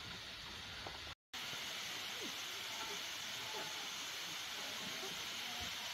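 Steady rushing hiss of a waterfall falling onto rocks, briefly cutting out about a second in.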